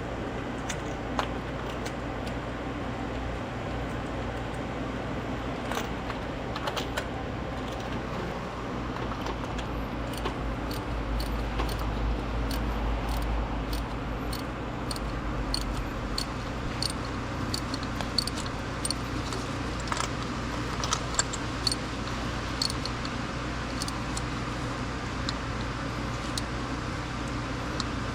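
Scattered small metallic clinks and taps of hand tools and parts being handled during spark plug and ignition coil work, over a steady low hum.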